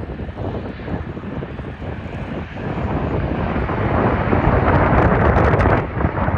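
An Emirates Airbus A380's four jet engines at takeoff power: a rumbling roar that swells about halfway through and turns crackly near the end, with wind buffeting the microphone.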